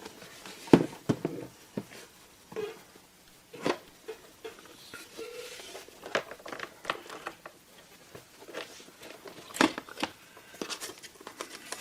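Unpacking a shipped pistol by hand: scattered sharp clicks and knocks of the box and case being handled, with brief rustling of packaging.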